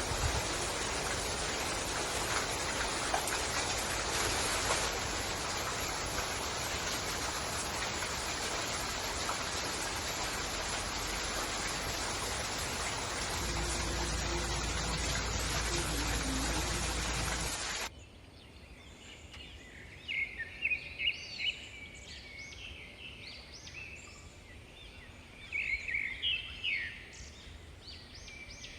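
A loud, steady rushing noise with a deeper rumble joining near the middle, cut off abruptly about two-thirds of the way through. After the cut, birds chirp in short, rapid bursts against quiet forest background.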